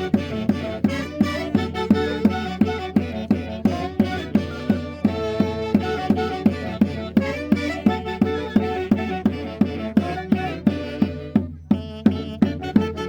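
Andean festival band music: sustained melody instruments over a steady drum beat of about two to three strikes a second.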